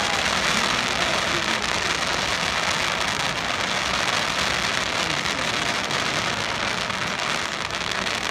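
Fireworks grand finale: a dense, steady crackle of countless small pops from many crackling shells bursting at once.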